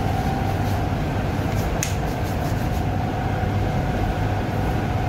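Steady mechanical drone of running kitchen machinery, a low hum under a steady whine, with a light click about two seconds in.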